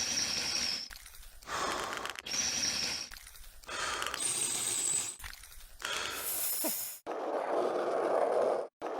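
A string of short, noisy sound-effect clips, each about a second long and cut off abruptly, some with a thin high whistle over the noise.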